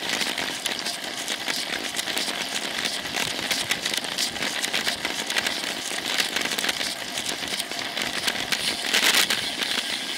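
Riding noise picked up by a bicycle-mounted Cycliq camera rolling over asphalt: a steady crackly rush of wind and road, with dense rattling and clicking, briefly louder about nine seconds in.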